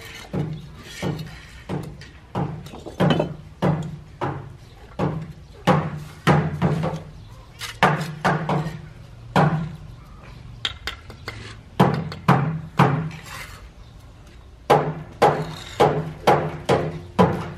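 A hammer striking again and again at an uneven pace, about one to two blows a second. The blows are lighter and sparser in the middle and come in a quick run near the end.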